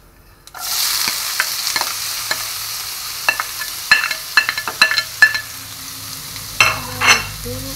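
Chopped onions dropped into hot oil with cumin seeds in a non-stick kadai. The sizzling starts suddenly about half a second in, with clicks and scrapes of a spoon pushing the onions off a glass plate.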